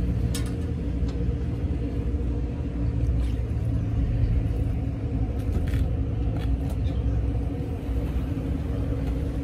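Steady low mechanical rumble with a constant hum, and a few faint clicks.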